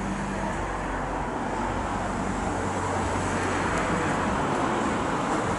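Steady rushing traffic noise that slowly grows a little louder, with a low drone underneath.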